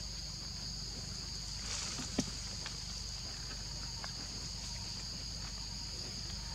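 Steady high-pitched drone of insects in the forest, two unchanging pitches held throughout, over a low rumble. A single sharp click about two seconds in.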